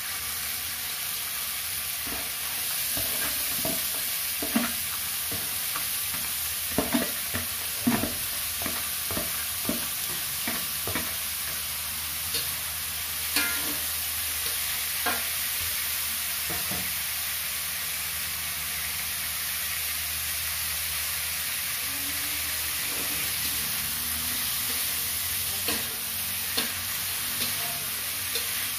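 Diced carrots and green onions sizzling in a metal wok as they are stir-fried, with a metal spatula scraping and clacking against the pan at irregular intervals.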